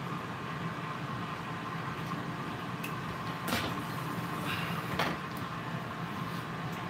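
Air fryer running, its fan giving a steady hum with a faint whine. Two short knocks sound about three and a half and five seconds in.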